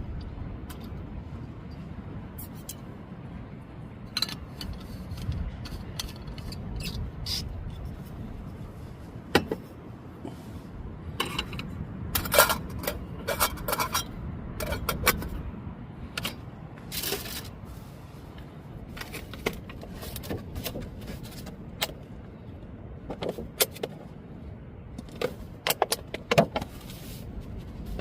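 Irregular clinks, taps and light scrapes of small hard objects being handled, over a steady low rumble.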